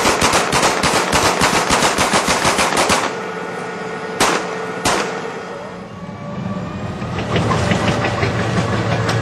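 Automatic gunfire: a rapid burst of shots lasting about three seconds, then two single shots. From about six seconds in, a steady low vehicle engine rumble builds up.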